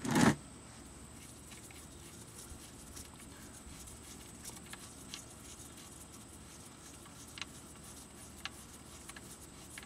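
Engine oil draining out of the oil pan's open drain hole into a plastic drain basin, a steady faint pouring, with a brief clunk at the very start.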